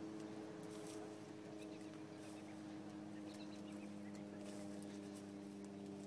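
A large flock of small birds in flight, with a few faint short chirps and brief soft rushes, over a steady low hum.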